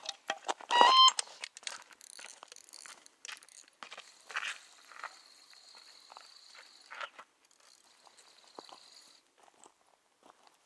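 Electronic bite alarm beeping in a quick burst about a second in as a fish takes line, followed by footsteps crunching over stony ground.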